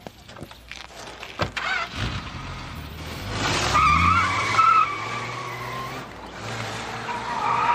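A car pulls away hard: its engine revs up and its tyres squeal loudly for about a second and a half, then squeal again briefly near the end.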